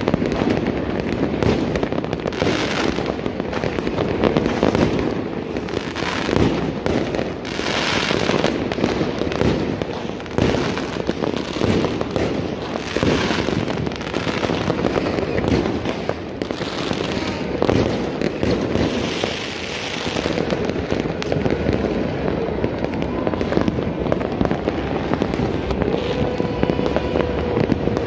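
Many aerial fireworks and firecrackers going off at once: a continuous crackling, thick with bangs, that never lets up.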